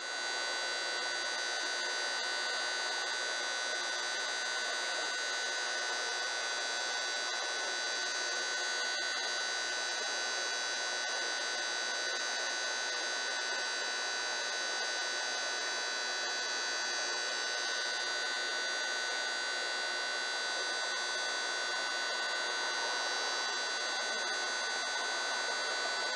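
Tinnitus-masking noise: a steady high-pitched hiss with several constant whistling tones running through it and no low rumble, unchanging throughout.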